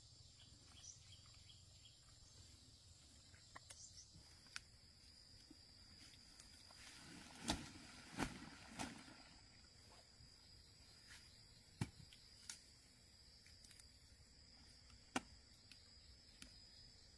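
Faint, steady high-pitched insect chirring, with a few short, sharp knocks scattered through it, the loudest about halfway in.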